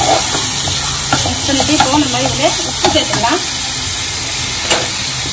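Chopped onions and tomatoes sizzling in hot oil in a kadai while a metal spoon stirs them, with a few sharp clicks of the spoon against the pan.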